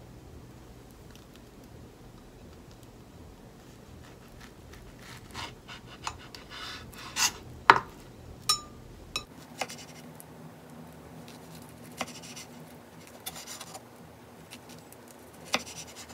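Chef's knife slicing fresh figs on a wooden cutting board: quiet at first, then from about a third of the way in, scattered sharp taps of the blade striking the board and short scraping cuts, the loudest tap a little before the middle.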